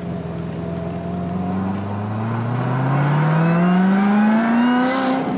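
Supercharged 6.2-litre V8 of a 2016 Corvette Z06, built up by LMR, pulling hard under acceleration: its note rises steadily in pitch for about five seconds, then breaks off near the end with a short hiss.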